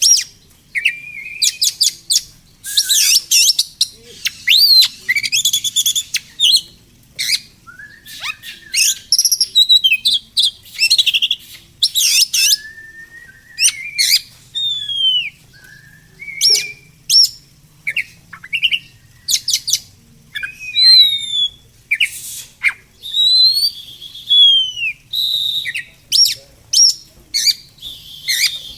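Songbirds singing: a busy run of sharp chirps, clicks, short trills and down-slurred whistles, coming in quick bursts with brief gaps between them.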